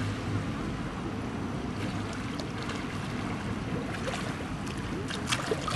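Pool water splashing and sloshing as a swimmer swims breaststroke toward the pool edge, with a few sharper splashes near the end.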